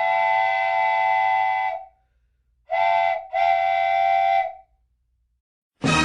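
A whistle or horn blowing three blasts: a long one, then after a pause a short one and a longer one, each a single steady chord-like tone.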